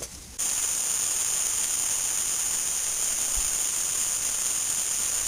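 Steady high-pitched insect chorus: an even hiss with a few high whining tones held level. It cuts in suddenly about half a second in.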